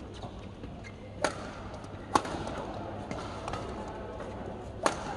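Badminton racket strikes on a shuttlecock during a singles rally: three sharp hits, about a second in, a second later, and near the end, over a steady background noise of the hall.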